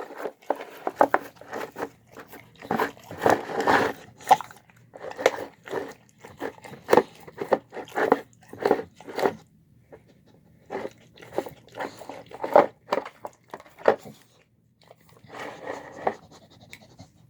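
A dog eating a meal of pulled chicken and pork with rice and vegetables: irregular chewing, biting and smacking at the food. There are short pauses about ten seconds in and again near fourteen seconds.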